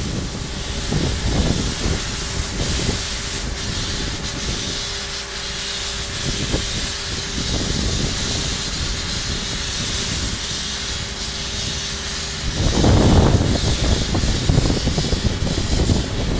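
Sandblasting nozzle blasting a facade: a steady hiss of compressed air and sand over a low rumble, with a faint steady hum underneath. About thirteen seconds in it turns louder and rougher.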